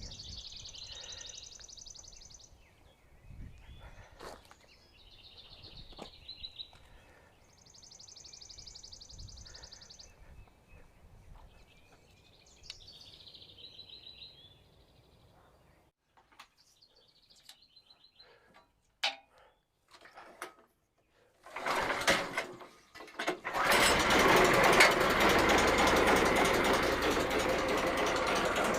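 Birds singing, a repeated high buzzy trill alternating with shorter chirping phrases. After a few clicks, a loud machine starts up about three-quarters of the way through and runs steadily: a small engine running.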